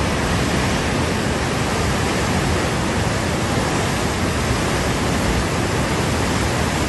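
A river in flash flood, its muddy, debris-laden water rushing and churning past in a steady, loud, unbroken rush.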